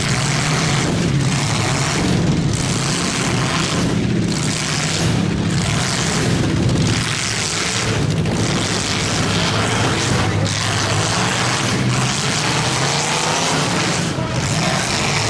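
Demolition derby cars' engines running loudly and without a break, their drone shifting as the cars drive and manoeuvre.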